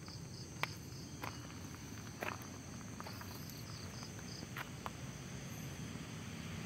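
A few scattered footsteps on gravel, faint, with a light insect chirping in short pulses behind them.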